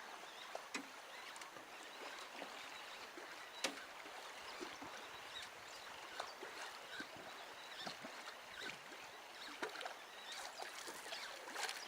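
Faint water and canoe sounds: a low steady wash with scattered small clicks and knocks, one sharper click about three and a half seconds in.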